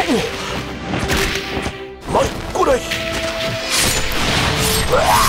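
Staged combat sound effects over background music: whooshes sweeping up and down in pitch and sharp crashing impact hits, several in quick succession around two seconds in.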